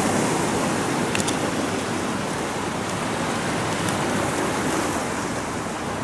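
Sea surf washing on a beach: a steady rushing noise, with a faint click or two about a second in.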